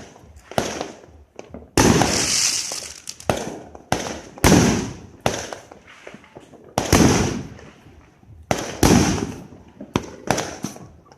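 Fireworks going off: about a dozen sharp bangs at irregular intervals, each followed by a short fading tail.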